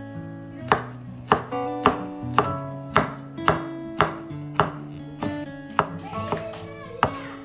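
Kitchen knife chopping garlic cloves on a wooden cutting board: a steady series of sharp chops, about two a second. Background music plays underneath.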